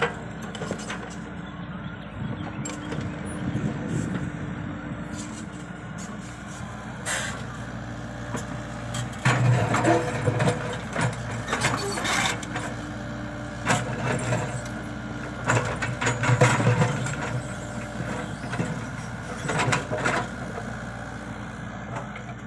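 Compact hydraulic excavator's diesel engine running steadily, with louder bursts of hiss and clatter several times as the machine works.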